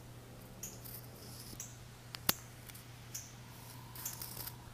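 A cat chewing and tearing grass blades: a scatter of faint, crisp clicks and snips, with one sharper click about two seconds in.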